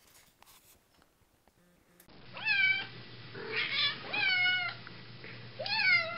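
Domestic cat meowing four times, starting about two seconds in, each meow rising and then falling in pitch, over a steady low hum.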